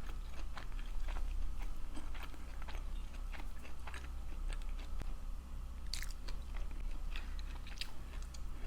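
Close-up eating sounds: chewing and biting into fried chicken wings, with many small wet clicks and crunches. A steady low hum runs underneath.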